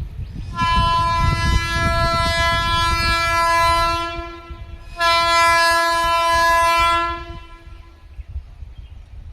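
Indian Railways locomotive horn sounding two long blasts, the first about three and a half seconds and the second about two seconds, over the low rumble of a moving train.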